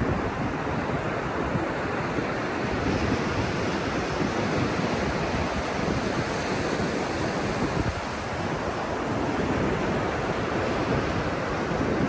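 Ocean surf breaking and washing up over flat wet sand, a steady rushing wash, with low wind rumble on the microphone.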